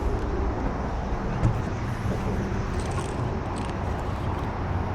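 Steady low hum of a boat motor running, over a constant wash of wind and water noise.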